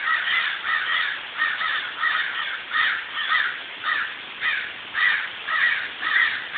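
A group of birds calling over and over, short calls following each other about two or three times a second without a break.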